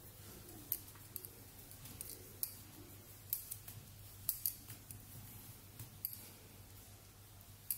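A metal 3.5 mm crochet hook working turquoise cotton cord into a foundation chain: faint, short clicks at irregular intervals, about one or two a second, over a low steady hum.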